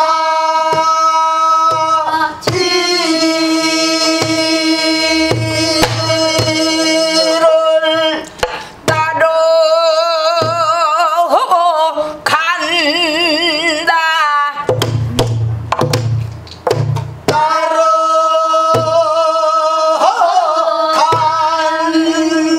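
A woman singing pansori in the slow jinyangjo rhythm: long held notes with wide, wavering vibrato, taken in short breaths. She is accompanied by strokes on a buk barrel drum, spaced out, then coming in a quicker run about two-thirds of the way through.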